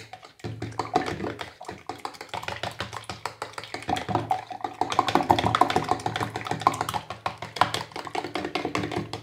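Fork whisking egg-and-milk batter in a plastic measuring jug: a rapid, steady clatter of the fork tapping the jug's sides.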